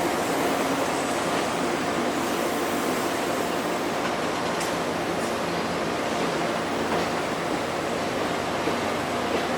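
Steady running noise of a locomotive-hauled passenger coach rolling along the rails, heard from inside the coach, with a few faint clicks about halfway through.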